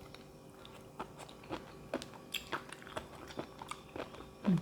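A person chewing a mouthful of Thai pounded seafood salad close to the microphone: a string of crisp, wet crunches, about two or three a second, with a short closed-mouth hum near the end.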